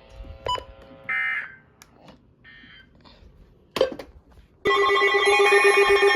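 After a few faint clicks and a short beep, an emergency alert tone starts suddenly about four and a half seconds in. It is a loud, shrill alarm of several tones at once with a fast pulsing rhythm, signalling an incoming weather warning.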